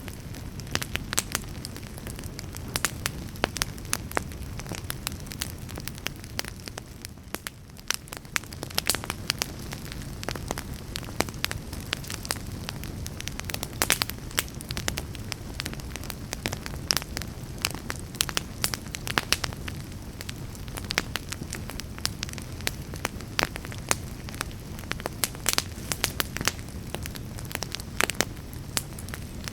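Fire crackling in a fireplace: irregular sharp pops and snaps over a steady low rumble of flames, briefly softer about seven seconds in.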